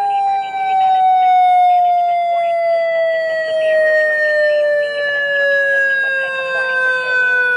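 Homemade mini electronic warning siren, an ACA Alertronic AL-1000 replica fed by a SiraTone tone controller, sounding a loud single tone through its amplifier and horn. The pitch sinks slowly and steadily the whole time: the controller is drifting off its set tone, a pitch problem it has while still warming up.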